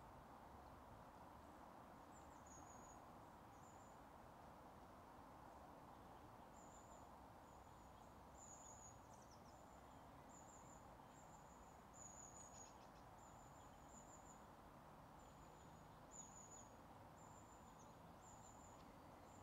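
Near silence: faint meadow ambience, a soft hiss with short, high-pitched chirps repeating once or twice a second from about two seconds in.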